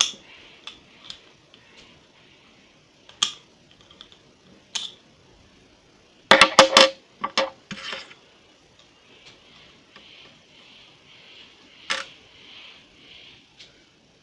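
Sharp plastic clicks and clatters as a highlighter is pried apart by hand, scattered at first, with a quick dense run of clicks about six to seven and a half seconds in and one more sharp click near the end.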